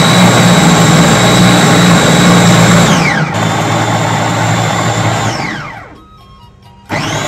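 A MIXNEC two-speed electric food chopper is being pulsed, its blades grinding a chili paste. The motor runs at a steady whine for about three seconds and spins down. It runs again a little quieter for about two seconds, winds down, and starts up once more near the end.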